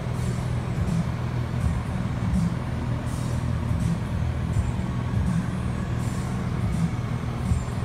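A steady low mechanical hum with a pitched drone, holding even throughout.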